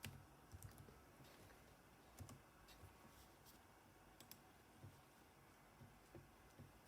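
Near silence with faint, irregularly spaced clicks of a computer mouse and keyboard being used.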